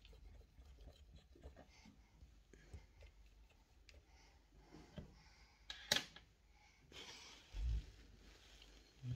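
Quiet room with faint scattered clicks and small knocks of objects being handled, a sharp click about six seconds in and a dull thump about a second and a half later.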